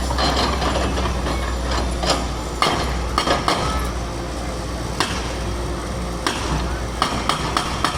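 Hammer blows knocking at the old bridge to break it up, as sharp irregular knocks. Some come singly and some in quick runs, with a quicker run near the end. A steady low rumble lies under them.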